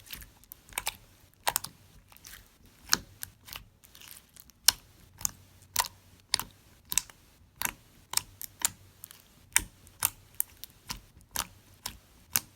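Clear slime with glitter and flakes being squished and poked by hand, giving irregular sharp clicks and pops, about two or three a second.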